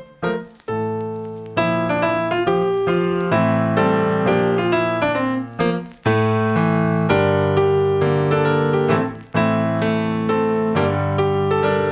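Solo Nord Electro 3 stage keyboard played live in a piano-type sound: sustained chords that change every second or two, with a few short breaks between phrases.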